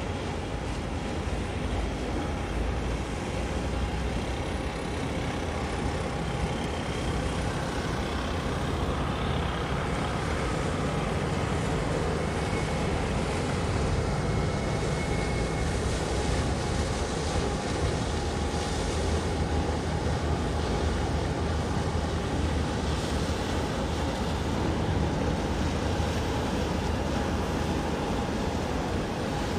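Steady low rumble with a constant faint hum over a noisy wash: distant ship engines mixed with wind and water.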